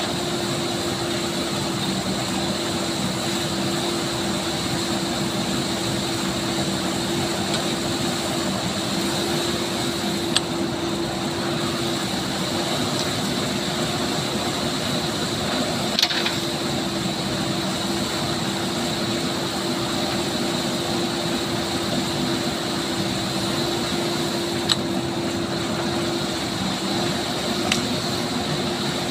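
JCB 3DX backhoe loader's diesel engine running steadily under load while the backhoe arm digs, with a few sharp knocks scattered through it.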